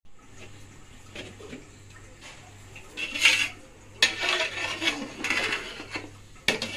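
Metal spatula scraping and stirring rice in broth inside a large aluminium pot: irregular clattering strokes starting about three seconds in, over a faint steady low hum.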